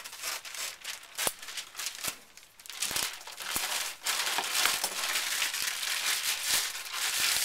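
Plastic bag around a block of moist pottery clay crinkling and rustling as hands untwist and open it. A few light knocks come in the first half, and the crinkling gets denser and louder from about halfway through.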